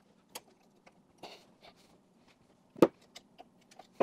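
A steel pick scraping and clicking against a seized circlip in a universal-joint bearing cup. The circlip has both ends broken, and the pick is being levered in a small hole drilled through it. Scattered light ticks are followed by one sharp, louder metal click just before three seconds in.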